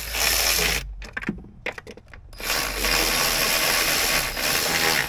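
Power ratchet running in bursts of about one to two seconds as bolts are snugged up, with a fast rattling click while it spins and a few loose clicks between runs.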